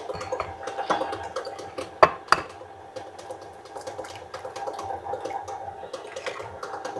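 Electric mixer running steadily, beating butter and sugar as eggs are added one at a time. About two seconds in come two sharp taps, an egg being cracked against a bowl.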